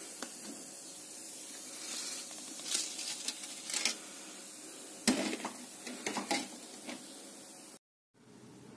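Irregular clinks and clatter of a fork and knife against a china plate of noodles as it is handled, over a steady background hiss; the sound drops out for a moment near the end.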